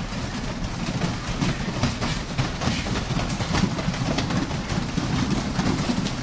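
Many hands and feet thumping on foam grappling mats as a group crawls across the mat on all fours, a quick uneven stream of soft thuds.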